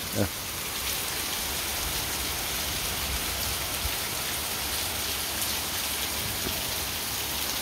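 Steady rain falling and pattering on surfaces in an even hiss.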